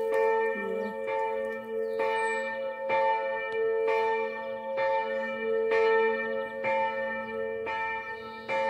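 Church tower bell ringing at noon, struck about once a second, each stroke ringing on into the next.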